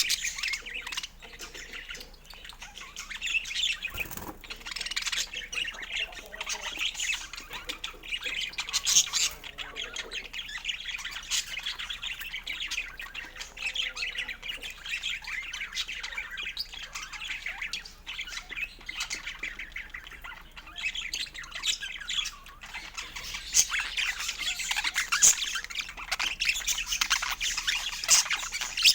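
Budgerigars chattering continuously, a dense run of fast chirps and warbles with louder sharp calls now and then.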